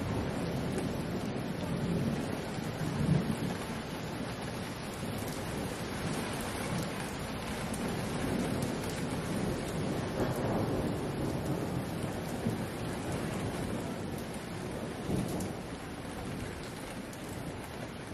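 Heavy rain pouring down steadily, with low rumbles of thunder swelling about three seconds in and again about ten seconds in.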